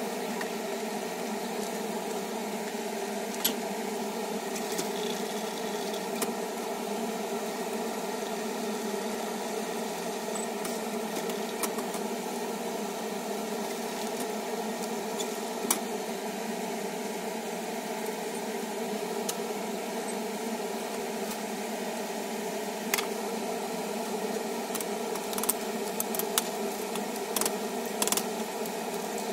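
A steady mechanical hum over a faint hiss from clams cooking in oil in an aluminium frying pan, with a few sharp clicks, more of them near the end, as metal tongs touch the clams and the pan.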